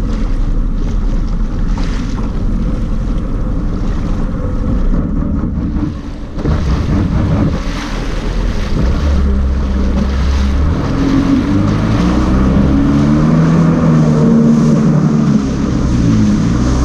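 Personal watercraft engine running and picking up speed, its note climbing and wavering from about a third of the way in. Water rushes and splashes at the hull and wind buffets the microphone.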